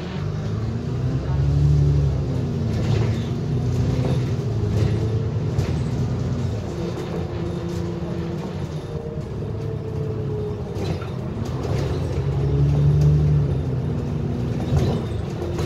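An Alexander Dennis Enviro400 double-decker bus's engine and drivetrain running, heard from inside the lower deck while the bus drives in traffic. The engine note rises and falls as it pulls away and eases off, with two louder surges about a second in and near the end. A few light knocks come from the bus.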